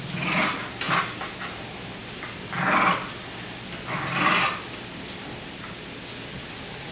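An Australian cattle dog and a Yorkshire terrier puppy play-growling at each other in rough play, in about four short bursts.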